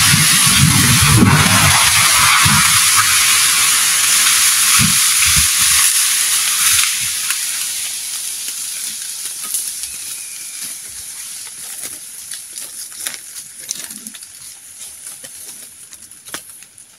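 A felled hardwood tree crashing down through the forest canopy: a loud rush of breaking branches and leaves with heavy low rumbling in the first few seconds. It fades after about seven seconds into scattered cracks and snaps of settling debris.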